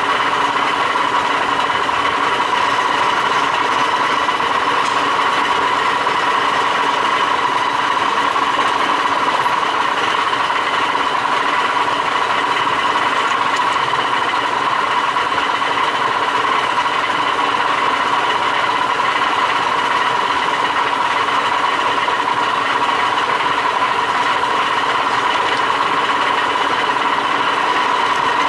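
Q 1313 pipe threading lathe running steadily during a threading test, with a constant whine.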